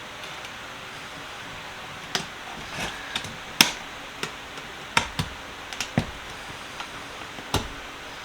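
Sharp metallic clicks and knocks, about ten of them at irregular intervals starting about two seconds in: steel sockets and a socket extension being pushed into and seated on the set's holder.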